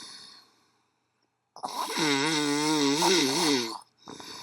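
Heavy snoring: a short fading breath, then after about a second's pause one long, loud snore with a wavering pitch lasting about two seconds.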